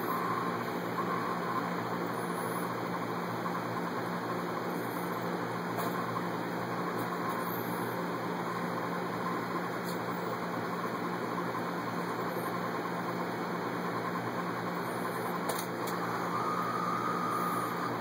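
Steady machine hum with a hiss, even throughout, with a faint higher tone rising in near the end.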